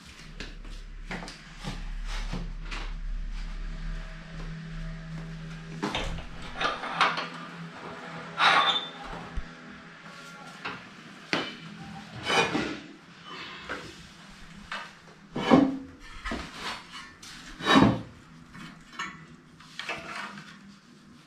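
Wooden boards and rods knocking, scraping and clattering against the steel frame and warp of an upright rug loom: a string of irregular knocks and rubs, a few of them sharp and loud. A low steady hum runs through the first six seconds.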